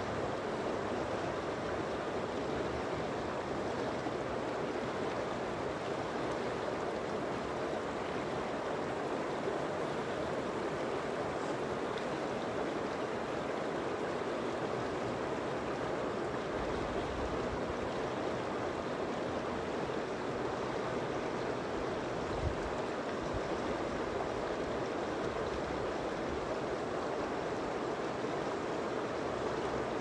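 Shallow mountain river running over and around rocks, a steady rushing and babbling of water.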